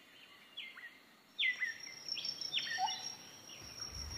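Faint bird calls: a series of about six short, downward-curving chirps, roughly one every half second, with a thin steady high whine joining about a second in.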